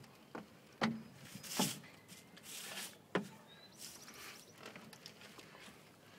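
A few sharp knocks on wood, four in the first three seconds or so, with short scraping rustles between and after them.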